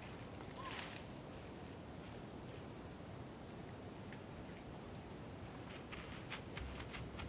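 A steady, high-pitched chorus of insects, with a few faint clicks near the end.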